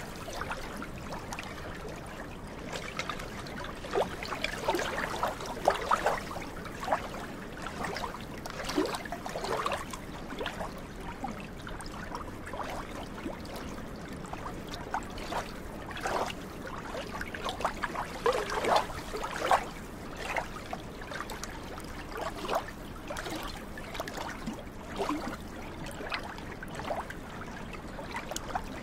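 Small waves lapping at the shore of a glacier lagoon, with irregular little splashes and gurgles over a steady wash of water.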